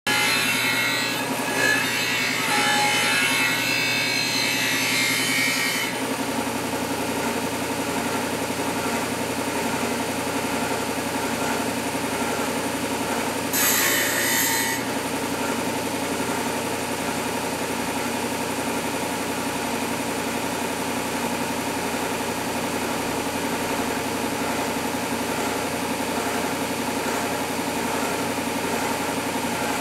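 Electric disc sander running steadily while a steel knife blade is ground against it, throwing sparks: a harsh grinding rasp for the first six seconds and again briefly about fourteen seconds in, with only the sander motor's steady hum between.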